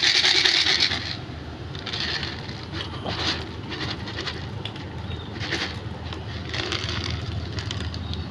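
A cat eating, with irregular scraping, chewing noises, the loudest in the first second, over a steady low background rumble.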